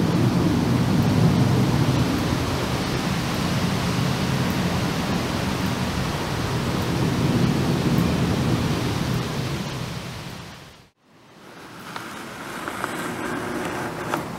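The four jet engines of a Boeing 747-400 freighter climbing high overhead: a steady deep rumble with hiss that fades away to nothing about eleven seconds in. A second, quieter distant jet rumble with a faint steady whine then begins, from a Boeing 747-8 freighter.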